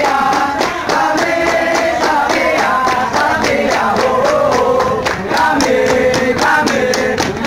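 A group of young men singing or chanting together in unison, over steady rhythmic hand clapping.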